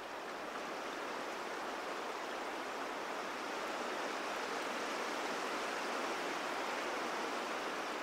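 Steady, even rushing noise of an outdoor field recording, with no distinct calls or knocks, swelling slightly toward the middle.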